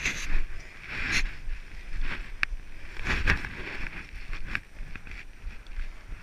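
Footsteps scuffing and crunching on a loose, stony mountain path, irregular clicks of boot on rock, over a low rumble of wind on the microphone.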